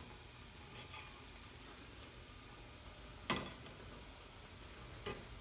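Small steel parts in a stainless wire strainer fizzing in a pot of hot parkerizing solution, a faint steady hiss, as the strainer is jiggled; its wire frame clinks sharply against the steel pot twice, once past the middle and again near the end.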